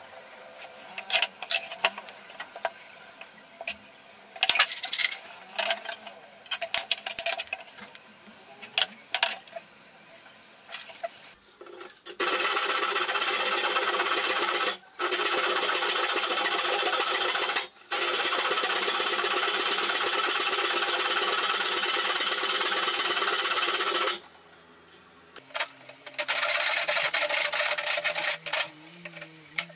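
Hand saw cutting through a wooden axe-handle blank: a loud, steady rasping that runs for about twelve seconds with two brief breaks, stops, then starts again near the end. Before the sawing come scattered clicks and knocks as the wood block and a pen are handled on the bench.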